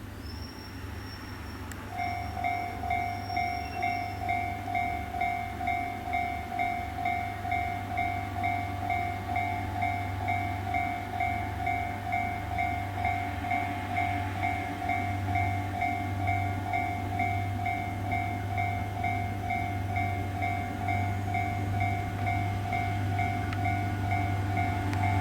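Japanese railroad crossing's electronic warning bell ringing, a quick, evenly repeating ding that starts about two seconds in, over a steady low hum. The bell signals that the crossing has been triggered by an approaching rail vehicle.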